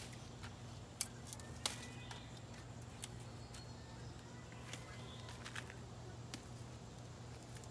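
Faint, scattered clicks and snaps, about half a dozen, as red gongura (roselle) leaves are pinched off their stems by hand and dropped into a stainless steel bowl, over a low steady hum.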